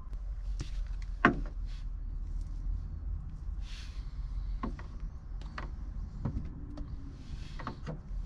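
Folding knife scraping and cutting into red cable insulation to strip it by hand: a string of short clicks and scrapes, the sharpest about a second in, and two brief hissy scrapes, over a low steady rumble.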